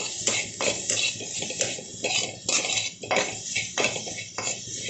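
A spatula stirring and scraping chopped spring onions and spices around a kadhai, about three strokes a second, over the sizzle of the onions frying.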